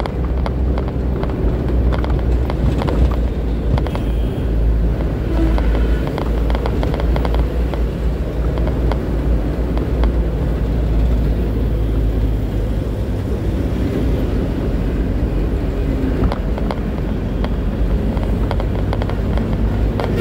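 A truck's engine runs steadily at road speed, heard from inside the cab as a low drone. Frequent small rattles and knocks from the cab and the road run through it.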